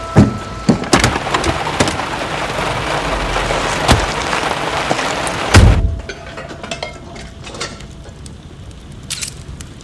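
Heavy rain pouring down, a loud steady hiss with scattered knocks, ended by a loud low thump a little under six seconds in. After that it is much quieter, with only faint ticks.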